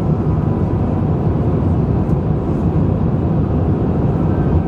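Steady low rumble of engine and airflow noise inside the cabin of an Airbus A350 on approach with flaps extended. The engines are Rolls-Royce Trent XWBs.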